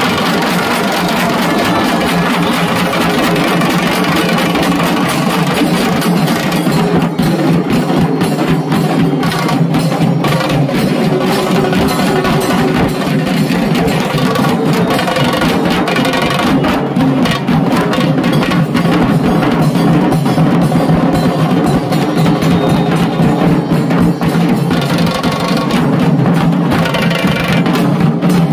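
A group of large Bengali dhak drums beaten rapidly with thin sticks, together with a small tasha drum, in a loud, dense, continuous rhythm.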